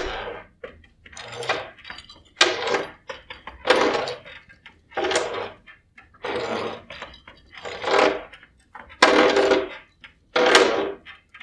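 Long hand-turned pump borer's auger boring lengthwise through an oak trunk, turned by a T-handle. It makes a burst of wood-on-iron noise with each turn, repeating a little over a second apart.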